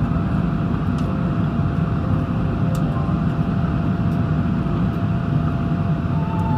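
Airbus A380 airliner noise: a steady, even low rumble of engines and airflow with faint constant tones, unchanging in level.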